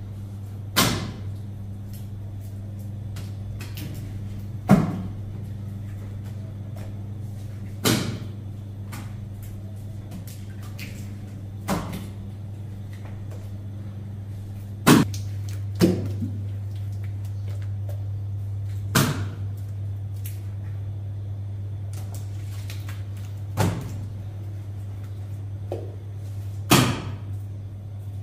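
Sharp knocks and slaps from work at a traditional sangak bread oven, about nine of them, coming every three to four seconds (two close together around the middle), over a steady low hum.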